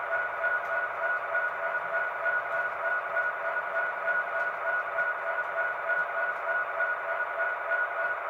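Model O-gauge diesel locomotive's onboard sound system playing its diesel idle sound: a steady, tinny hum that pulses evenly about twice a second, with almost no bass.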